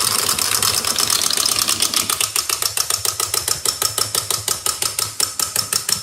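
Rapid run of clicks, about ten a second, slowing and spacing out toward the end before stopping.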